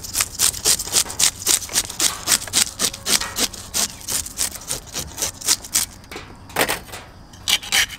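Flat perforated metal hand scaler scraping the scales off a large fish in quick rasping strokes, about four a second. The strokes pause briefly around six seconds in, then a few more follow.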